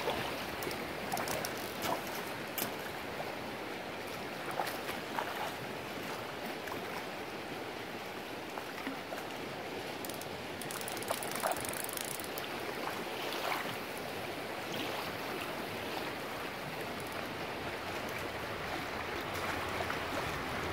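Steady rushing of a flowing river current, with a few short clicks scattered through it.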